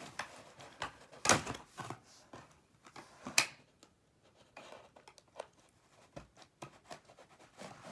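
Handling noise from pulling a plastic target part out of its packaging: scattered clicks, scrapes and rustles, with two sharper knocks about a second in and about three and a half seconds in.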